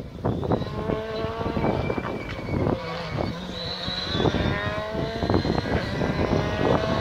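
Rally car engine at full throttle, approaching and growing louder; its pitch climbs and drops back several times as it shifts up through the gears, with several sharp cracks along the way.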